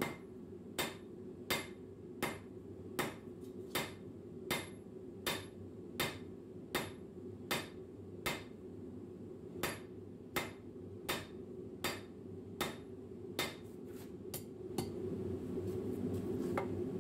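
Hand hammer striking a red-hot square steel bar on a railway-rail anvil, flattening the heated end into a goose-foot scroll end. There are about twenty sharp, ringing blows at a steady pace of roughly one every three-quarters of a second, with a short pause about halfway, a few quicker blows near the end, and then they stop.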